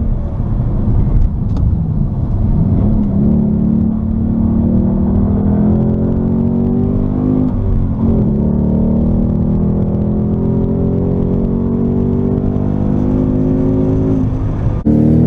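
Ford Mustang GT's 5.0 L V8 exhaust running under load, its pitch mostly steady with a few dips and climbs back, as at gear changes. The sound cuts off abruptly near the end.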